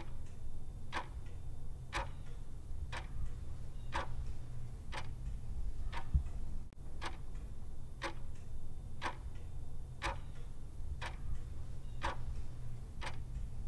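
Clock ticking steadily, a louder tick each second with a softer one between, over a low steady hum.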